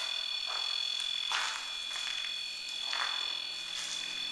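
Steady high-pitched electronic tone, several pitches sounding together, switched on just before and held unchanged, with soft scuffing noises about once a second under it.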